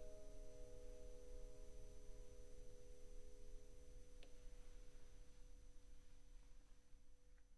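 Final chord of an upright piano ringing out and slowly fading away, with a faint click about four seconds in.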